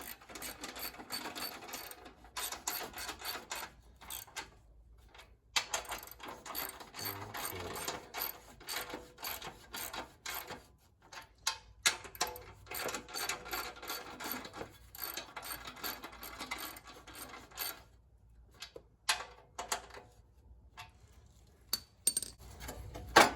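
Hand ratchet wrench clicking in repeated runs while bolts are tightened, with short pauses between runs and a few sharper knocks.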